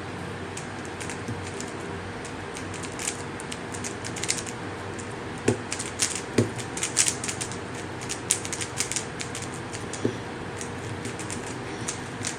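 A Rubik's Cube being turned fast by hand, its plastic layers clicking and clacking in quick, irregular runs.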